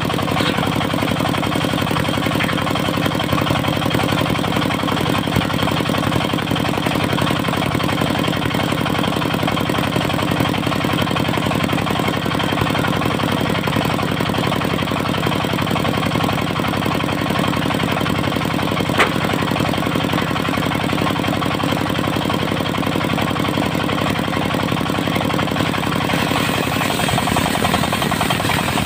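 Diesel engine of a portable circular sawmill running steadily under a fast, even firing rhythm, with one sharp click about two-thirds of the way through.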